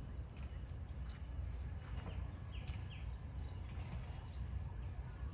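Birds chirping over a steady low rumble, with a few quick, high chirps clustered around the middle.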